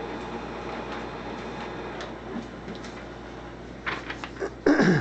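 Lexmark T642 monochrome laser printer running while it prints a report page: a steady mechanical hum with light ticking. A few sharp clicks come near the end, followed by a short, loud rushing sweep that falls in pitch.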